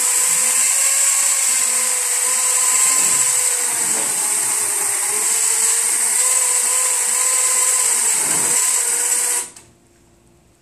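AmpFlow M27 electric motor driving a walker's twin ACME-screw track actuators through a 3-to-1 gear reduction and chain, lifting the handlebars under a person's weight as he stands. A loud steady whine that sags slightly in pitch a couple of times and stops abruptly about nine and a half seconds in.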